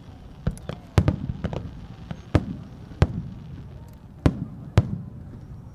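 Aerial firework shells made by Haga Kako bursting in a string of sharp booms, roughly one a second, each trailing off in an echo, with fainter pops between. The last burst comes about a second before the end.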